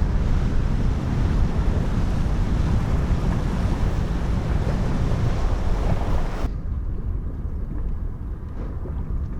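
Wind buffeting the microphone over open water, a steady low rumble with the hiss of wind and water. About six and a half seconds in, the higher hiss cuts off abruptly, leaving a quieter low rumble.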